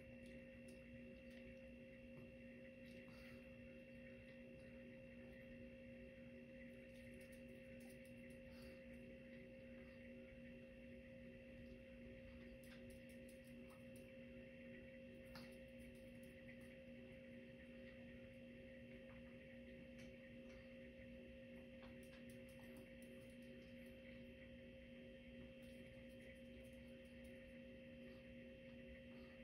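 Near silence: a faint, steady electrical hum made of several tones, with a few faint ticks.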